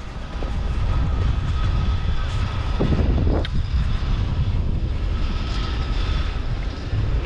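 Steady wind rumble on the microphone while skiing downhill, with one short scraping swish of skis on snow about three seconds in.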